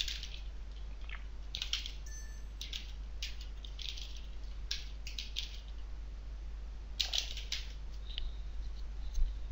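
Computer keyboard keys tapped in short, scattered runs of soft clicks with pauses between, over a low steady hum.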